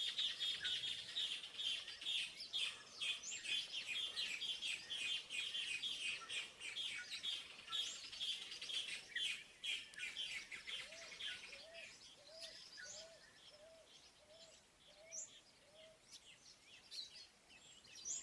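Wild songbirds singing: a dense stream of fast, high chirps for the first half, thinning out after about ten seconds. Then a lower bird repeats a short rising-and-falling note about eight times, roughly one a second.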